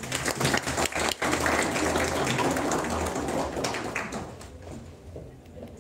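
Audience applauding, fading out over the last couple of seconds.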